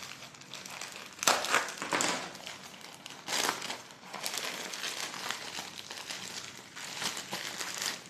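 Plastic courier mailer bag crinkling and rustling as it is cut open and pulled apart to get a bubble-wrapped package out, with a few louder crackles in the first few seconds.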